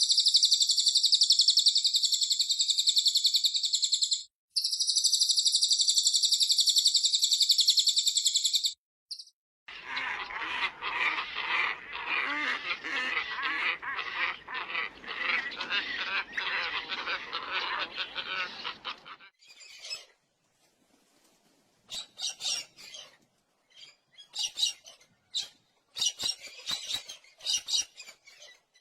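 Recorded songbirds heard one after another. First comes a very high, continuous buzzing trill in two long stretches with a short break, then about nine seconds of dense, lower chattering song, then scattered short high calls.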